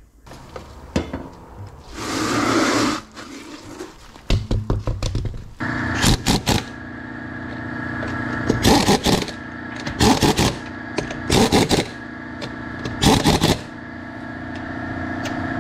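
An impact wrench runs the van's wheel lug nuts on in five pairs of short, loud bursts, one pair per nut. A steady hum starts under it about five and a half seconds in, and a few clinks and a brief rushing scrape come before that.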